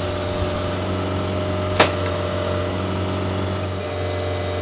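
Horizontal directional drill rig's engine running steadily, with a single sharp knock about two seconds in.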